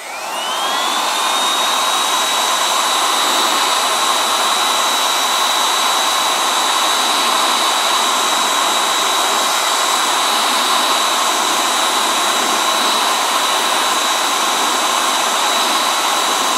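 Electric hot-air heater (heat gun) blowing steadily, a rushing of air under a motor whine that rises in pitch as it spins up about a second in and then holds steady. It is drying water out of a cut in a rubber boot before the patch is glued.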